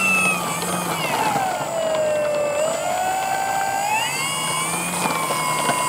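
NTM Propdrive 50/50 570KV brushless electric motor spinning an APC 11x5.5 propeller as the model plane taxis on the ground, a whine whose pitch sinks about a second in and then climbs back in two steps as the throttle is eased off and opened again.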